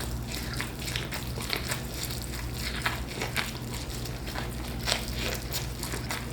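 A person chewing and biting food close to the microphone: irregular crackly clicks and smacks, a few louder ones, over a steady low hum.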